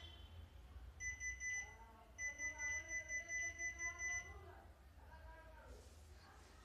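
Piezo buzzer of an Arduino collision warning system beeping with a high-pitched tone: one beep about a second in, then a quick run of short beeps, about four a second, for about two seconds before it stops. It is the system's audio proximity warning, set off by a hand held close to its ultrasonic sensor.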